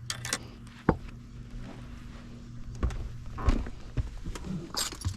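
Scattered knocks and thumps of gear and footsteps on a fishing boat's deck, over a steady low hum.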